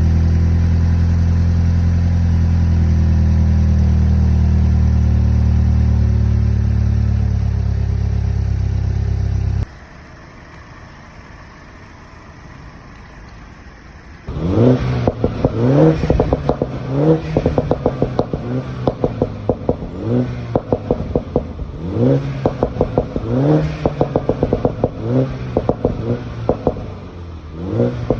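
Mini Cooper S (F56) on its stock exhaust: the engine runs at a steady held speed for about ten seconds, then drops suddenly to a quiet idle. A few seconds later come a dozen or so quick throttle blips, each rev rising and falling.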